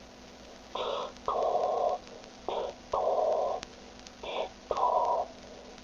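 Darth Vader-style respirator breathing: three breath cycles, each a short hiss followed by a longer one, about every two seconds.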